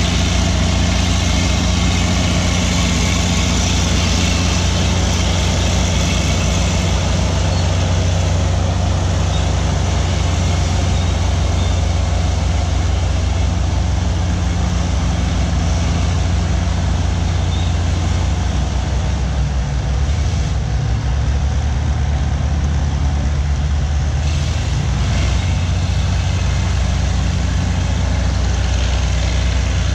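Diesel engine of an Allis-Chalmers HD-16 crawler dozer running steadily under load as it pushes dirt. A second crawler dozer's engine runs close by. The engine note shifts a little about two-thirds of the way in.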